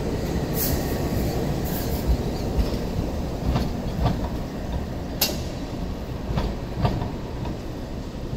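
Hong Kong Light Rail car moving off over a junction of points and crossings: a steady low rumble with irregular clacks of the wheels over the rail joints and crossings, easing off a little as it draws away.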